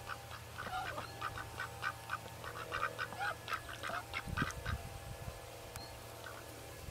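Domestic ducks quacking in a quick run of short calls, about five a second, that dies down about four and a half seconds in, with a few low bumps at about the same time.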